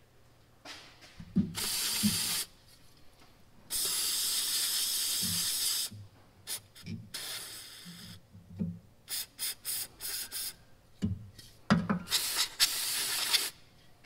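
Aerosol spray can with a straw nozzle spraying onto a radiator core in three hissing bursts: a short one about a second in, a longer one of about two seconds around four seconds in, and another near the end. Light clicks and taps from handling the can come between them.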